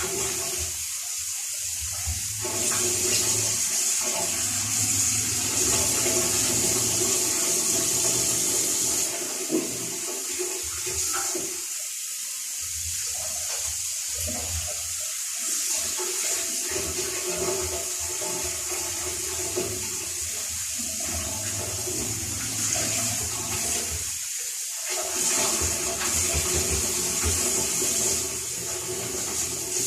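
Water running steadily, louder for several seconds near the start and again near the end, as excess soap powder is rinsed out of the washing machine.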